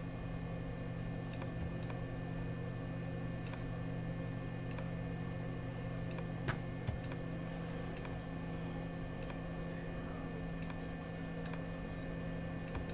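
Scattered light computer mouse clicks, about one a second, with two slightly louder knocks about halfway through, over a steady low electrical hum.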